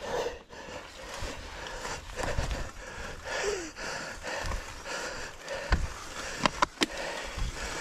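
Mountain bike rolling over a rough, hard-dried mud track: steady tyre and wind noise with sharp knocks and rattles from the bike over bumps, several of them in the second half. The rider breathes hard.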